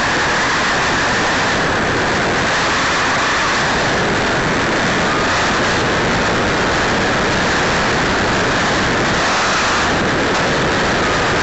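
Steady, loud rushing wind and propeller noise picked up by a keychain camera riding on an E-Flite Apprentice RC trainer plane in flight. The plane's electric motor is buried in the airflow hiss.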